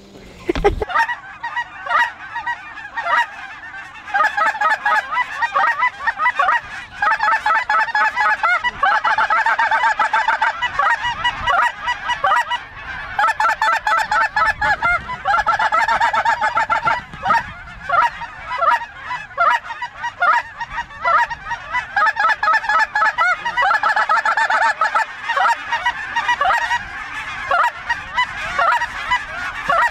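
A large flock of snow geese calling overhead: a dense, continuous chorus of high, rapid honks, with a few Canada geese among them.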